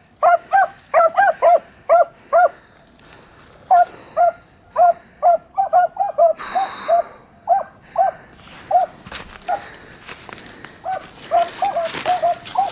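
Beagles giving tongue on a rabbit's track: a run of short, sharp chop barks, two or three a second, that pauses briefly and picks up again. A brief rush of noise comes about six seconds in.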